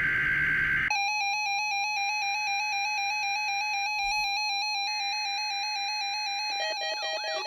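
Synthesized electronic alert tones start about a second in: a held beep with a higher tone cutting in and out twice, then changing near the end to a fast repeating pattern of falling chirps.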